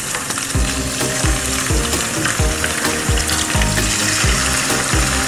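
Milkfish steaks frying in hot oil in a wok: a steady sizzle. Background music with a steady beat comes in about half a second in.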